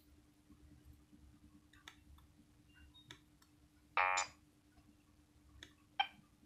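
Short gap between Nokia 6100 ringtones: faint scattered clicks over a low steady hum, a single short electronic beep about four seconds in, and a sharper click about two seconds later.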